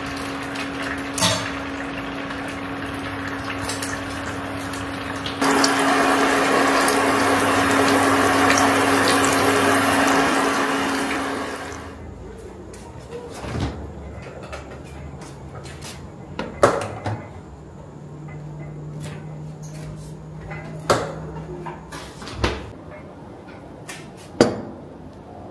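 Eggs sizzling in a pan on an induction hob: a steady hiss with a hum under it, louder from about five seconds in, stopping abruptly about twelve seconds in. After that, quieter kitchen handling with several sharp knocks and clicks.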